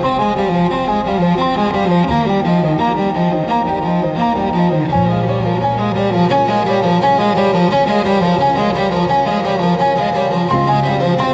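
Slow ambient music led by a bowed cello, with a faint crackling fireplace beneath it.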